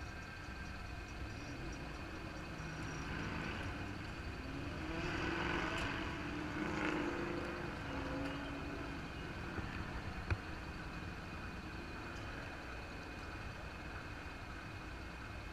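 Motorcycle engine idling at a standstill with a steady low rumble. About five seconds in, an engine sound swells and then fades over a few seconds. A single sharp click comes about ten seconds in.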